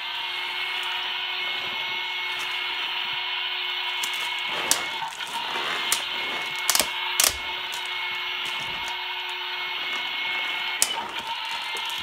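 Toy vacuum cleaner running its steady whirring vacuum sound while it is pushed across carpet, with a few sharp knocks. The toy has realistic sounds but no real suction: it only pushes the paper bits around.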